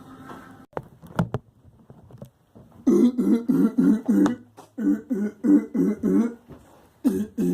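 A man laughing hard in rapid repeated 'ha-ha' pulses, about five a second, in three runs with short breaths between them. A couple of sharp clicks come about a second in.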